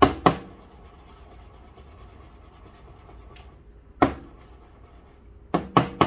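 A milk pitcher of freshly steamed milk knocked against the counter: two sharp knocks at the start, one about four seconds in and two quick ones near the end. This tapping is done to break up bubbles in milk frothed with too much foam.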